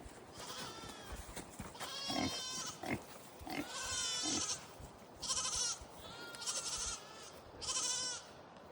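Hungry livestock calling impatiently for food: about six high-pitched cries that waver in pitch, with a few short low grunts in between.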